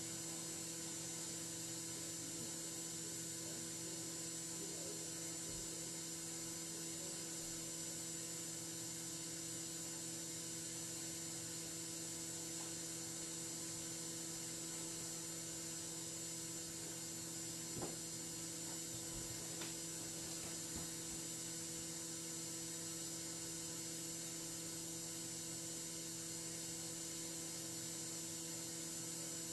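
Steady electrical hum with a thin high whine and hiss, unchanging throughout; a faint tick about halfway through.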